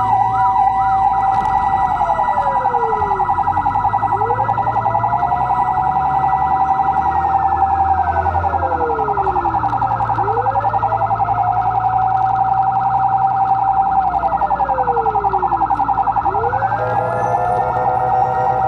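Fire engine sirens sounding together on an emergency response: a fast-warbling siren over a steady tone, with a wail that falls in pitch and climbs back up about every six seconds.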